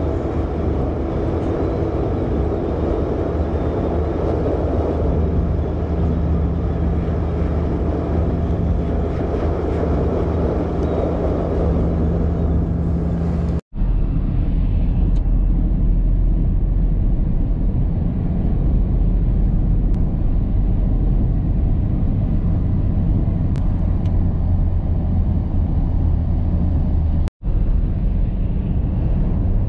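Steady engine and tyre noise inside a car's cabin while cruising at road speed: a continuous low hum under a haze of road noise. The noise breaks off for an instant twice, about fourteen and twenty-seven seconds in, each time coming back with a slightly different tone.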